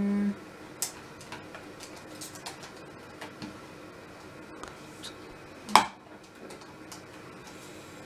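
Light scattered clicks and taps of a plastic wire egg slicer and its tub as peeled boiled eggs are set in and sliced, with one sharper, louder click about six seconds in.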